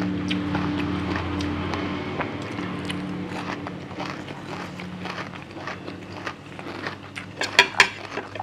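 Eating sounds from a red ant egg salad: scattered small clicks and crackles of chewing and of fingers picking through the mixture and leaves, with two sharper crackles shortly before the end as a leaf is taken up. A low steady engine-like hum fades away over the first few seconds.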